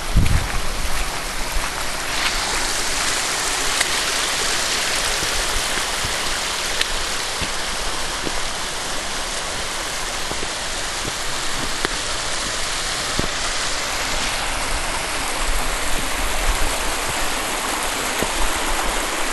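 A shallow creek running and splashing down a small cascade over layered shale ledges: a steady rushing that turns brighter and hissier about two seconds in.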